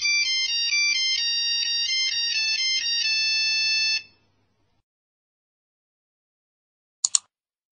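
Nokia mobile phone playing a monophonic ringtone tune, a quick run of bright stepping beeps that cuts off abruptly about four seconds in as a key is pressed. Two quick clicks come near the end.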